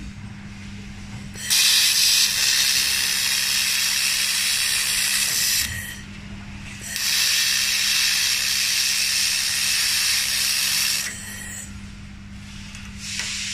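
Handheld fiber laser welder firing in two passes of about four seconds each: a hiss of shielding gas from the nozzle with the weld sizzling, switching on and off sharply. A steady low hum runs underneath.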